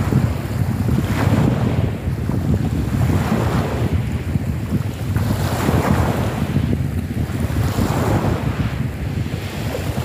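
Small choppy sea waves breaking and washing over a pebble shore, a fresh wash of surf every couple of seconds, under wind noise rumbling on the microphone.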